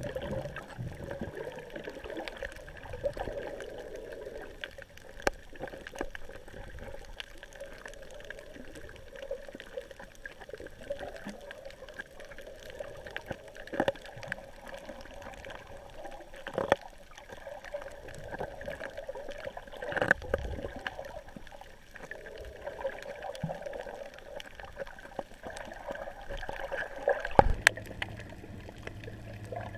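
Muffled underwater water noise as a snorkeler swims, with scattered sharp clicks and a few low thumps, the loudest near the end.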